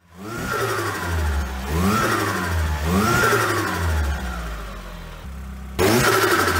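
Opel Astra G car engine revving: three blips, each rising and then falling in pitch, over a steady running sound. Near the end it changes abruptly to a louder, steadier engine sound.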